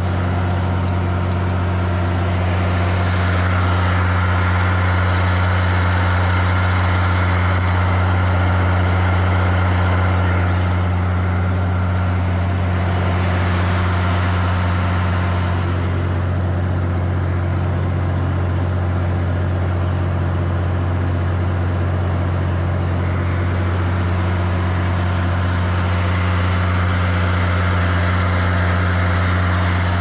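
Tractor engine running steadily, a constant low drone that holds the same pitch throughout.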